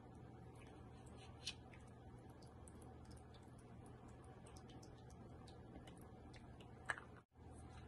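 Faint small clicks and scrapes of a miniature wooden spoon stirring white powder in a tiny plastic bowl, with two sharper ticks, one about a second and a half in and one near the end.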